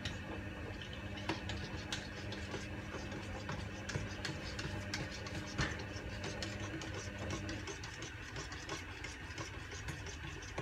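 A metal spoon stirring coconut milk in a small plastic cup, clicking and scraping against its sides many times. A steady low hum runs underneath and stops about three-quarters of the way through.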